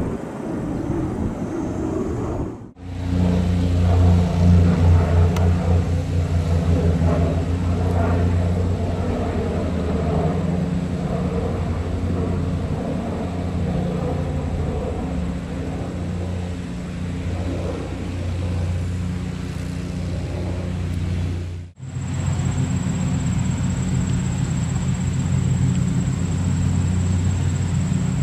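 Twin-engine turboprop airliner flying overhead: a steady low propeller drone with a throbbing beat, loudest a couple of seconds in. The sound breaks off abruptly twice at edits, the last part being a similar low drone with a thin high whine over it.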